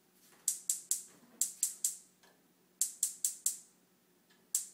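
Electronic spark igniter of a new gas range clicking rapidly, about five clicks a second in short runs of four with pauses between, as the burner knob is held at light. The burner has not yet caught on this first lighting.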